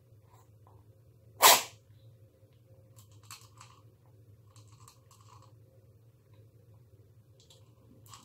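Cat crunching dry food from a bowl in short bouts of chewing, with one loud sharp knock about a second and a half in.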